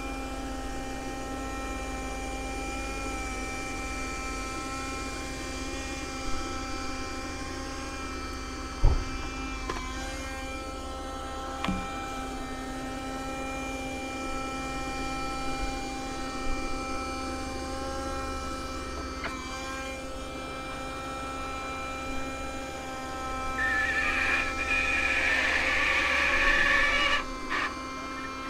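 Kärcher WV6 Plus battery window vacuum's suction motor running with a steady whine as its squeegee is drawn over the wet glass, with a few light knocks. A louder rushing hiss for a few seconds near the end.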